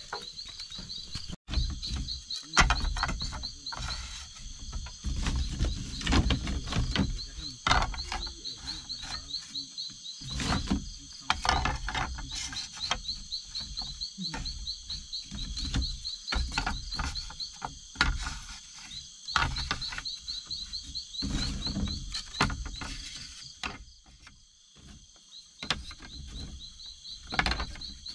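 Night insects calling steadily in the background, a rapidly pulsing trill with a constant higher buzz above it. Over them, irregular knocks, clatter and low thumps of handling and work close by.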